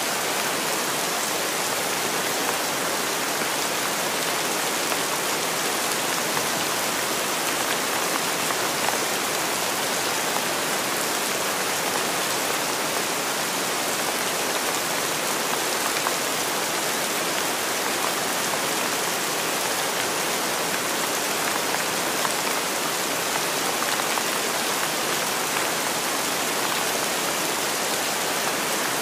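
Steady rain falling: an even, unbroken hiss with no pauses.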